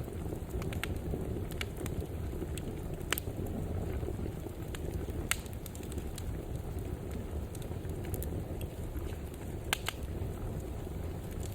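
Wood fire burning in a fireplace: a steady low roar of flames with scattered sharp crackles and pops, a few of them louder.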